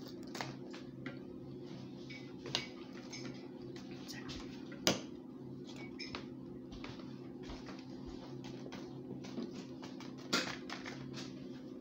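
A duckling's bill pecking and tapping at a wooden tabletop and scraps of paper: irregular light clicks and taps, the sharpest about five seconds in, over a steady low hum.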